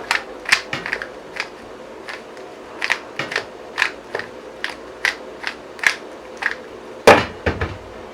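QiYi MS magnetic 3x3 speed cube being turned, its plastic layers clicking in an irregular run of about two to three clicks a second. A louder thump comes about seven seconds in.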